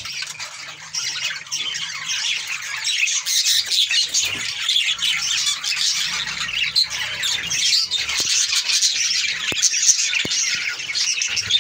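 A flock of budgerigars chattering continuously, a dense stream of rapid, high-pitched chirps from many birds at once.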